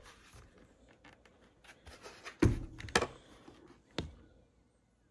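Handling noise from a full-face off-road helmet being turned over and pried at by hand: soft rustling and plastic clicks, a dull knock a little after two seconds in, and a sharp click about four seconds in.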